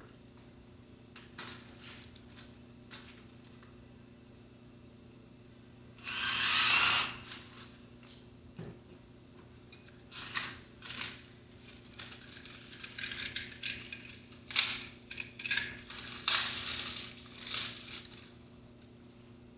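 Hand tools and metal bicycle parts clinking and rattling in scattered clicks and short clusters. About six seconds in there is a louder rustling scrape that lasts about a second.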